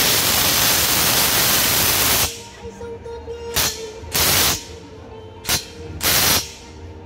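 Cordless brushless impact wrench hammering on a steel bolt: one continuous burst of about two seconds, then four short trigger bursts.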